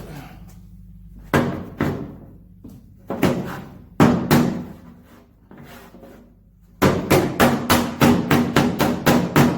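Body hammer striking the steel sheet metal of a Ford F-250's body panel to beat out a dent: a few spaced strikes, then a quick run of about four taps a second near the end, each with a short metallic ring.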